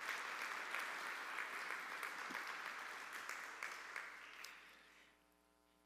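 Congregation applauding, starting suddenly and dying away about five seconds in.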